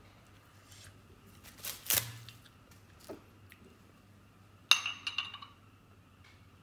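A glass wine bottle clinks sharply against a small drinking glass about three-quarters of the way through, ringing briefly, as wine is about to be poured. A shorter, duller noise comes about two seconds in.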